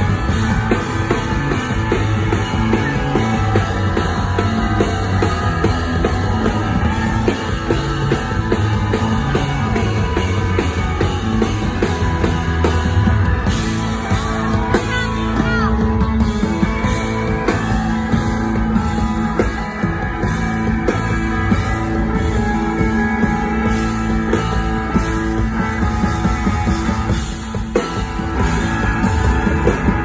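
Live rock band playing loudly: electric guitars and a drum kit, with a woman singing lead.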